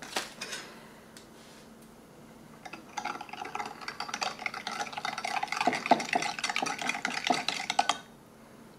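A spoon stirring powdered grape drink mix into water in a drinking glass, with quick rapid clinks and scrapes against the glass that start about three seconds in and stop suddenly near the end.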